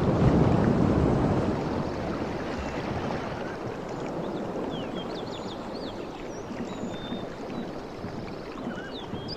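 Ocean waves washing in: one surge swells and fades over the first two seconds, then a steady wash of water. Small birds chirp through the second half.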